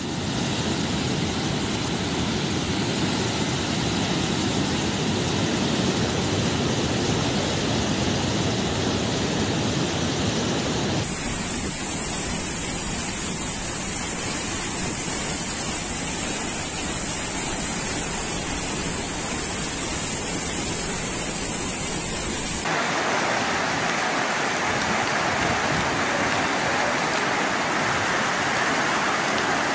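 Steady rushing noise of fast, turbulent floodwater, churning over a weir and later rushing down a narrow lane. The sound changes abruptly twice, about 11 and 23 seconds in.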